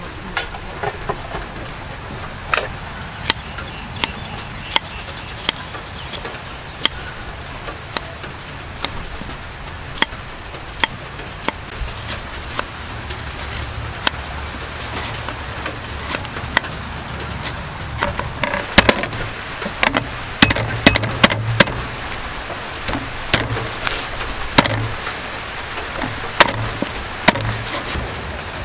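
Kitchen knife chopping on a thick wooden chopping board: sharp knocks of the blade striking the board, spaced under a second apart at first, then coming faster and in quick clusters past the middle.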